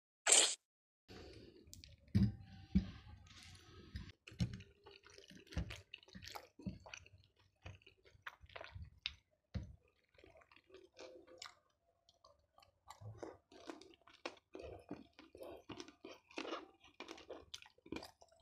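A person chewing batagor (fried fish dumplings in peanut sauce) close to the microphone: irregular wet smacking and clicking mouth noises. A brief loud noise comes right at the very start.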